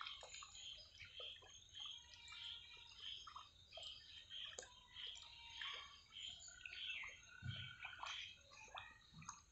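Faint, steady chirping, about two chirps a second, over soft wet clicks and slurps of ducks dabbling with their bills in muddy shallow water.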